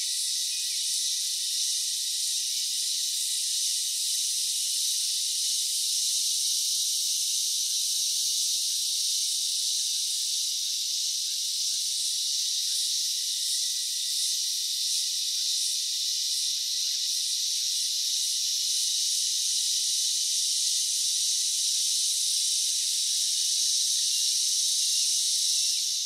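Steady high-pitched hiss with no low end, unchanging throughout, with a faint thin steady tone running under it.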